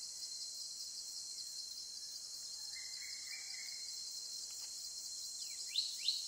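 A steady, high-pitched chorus of insects, with a faint bird call about halfway through and a few quick, downward-sliding bird chirps near the end.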